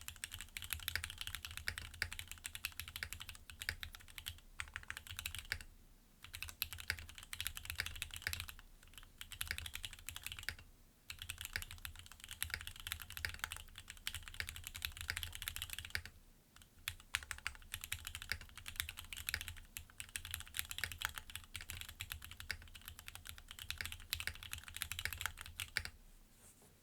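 Fast continuous typing on a Geonworks Frog mini mechanical keyboard with linear Gateron Milky Yellow switches and PBT keycaps, the keystrokes clattering densely. It pauses briefly about 6, 11 and 16 seconds in and stops just before the end.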